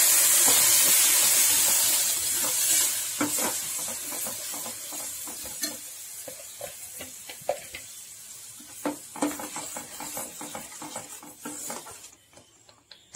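Ground tomato and onion puree hitting hot butter in a steel pot. It sizzles loudly at first, then dies down over several seconds. From about three seconds in, a perforated steel skimmer scrapes and clinks against the pot as the mixture is stirred.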